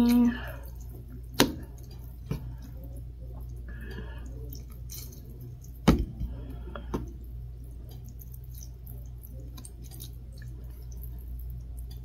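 Chopsticks stirring and lifting instant ramen noodles in a cup of broth: a few sharp clicks of chopsticks against the cup, the loudest about a second and a half in and again about six seconds in, with soft wet sounds of noodles and broth between them, over a steady low hum.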